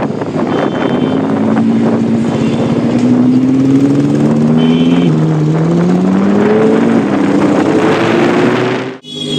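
Lamborghini Huracán Evo Spyder's V10 engine running under light load, its pitch climbing slowly and steadily over several seconds. The sound cuts out abruptly for a moment near the end.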